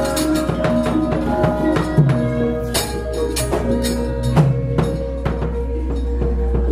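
Javanese gamelan ensemble playing a steady, pulsing melody of held metallic tones. It is crossed by frequent sharp knocks, which fit the puppeteer's keprak plates and dodogan rapping on the puppet box.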